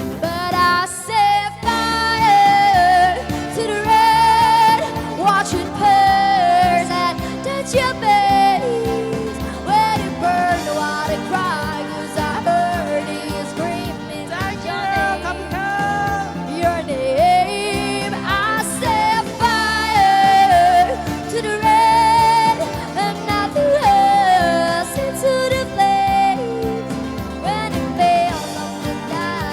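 A live pop song cover: a singer holding notes with vibrato over amplified instrumental backing, through a street busking sound system.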